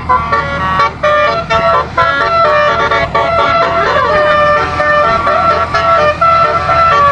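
A 12-note basuri telolet air horn, a bank of twelve compressor-fed horn trumpets played from a MIDI module, sounding a melody of short held notes. About four seconds in, a couple of notes slide up and down across each other. A steady low hum runs underneath.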